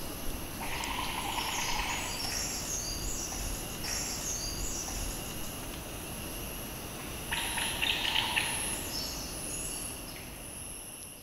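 Tropical forest ambience: a steady high-pitched insect drone with birds calling over it. It has two louder stretches of calling, about a second in and again about seven seconds in, and fades out at the end.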